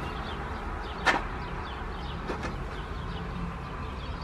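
Steady low rumble of street traffic, with a sharp click about a second in and a fainter one a little over two seconds in.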